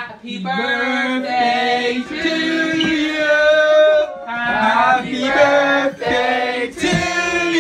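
A group of people singing together in chorus, with long drawn-out notes.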